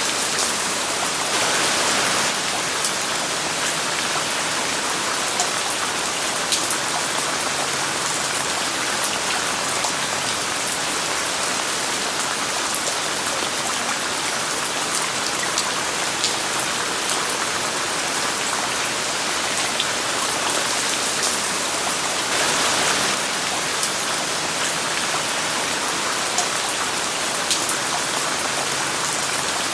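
Steady rain falling, mixed with white noise, with scattered individual drops ticking close by. It swells briefly about two seconds in and again around twenty-two seconds in.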